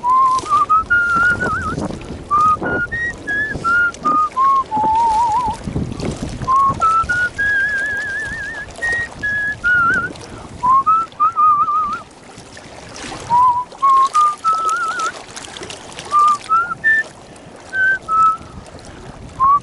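A man whistling a slow tune by mouth: a single melody of held and gliding notes, some wavering, in phrases with short pauses between them. A low rumble of wind noise runs underneath.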